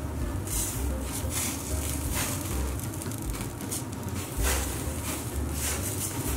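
Minced-meat kebabs sizzling on skewers over a charcoal fire on a gas grill, with irregular hissing and spitting bursts over a low rumble of the flames.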